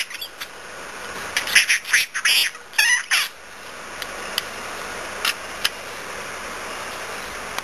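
Budgerigar chirping and squawking in a quick run of short, sharp calls during the first half, then three single short chirps. A steady background noise rises under them in the second half.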